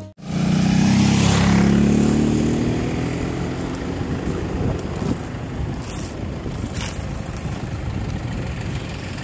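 A road vehicle's engine running and rising slightly in pitch over the first two seconds, then settling into steady road and wind noise.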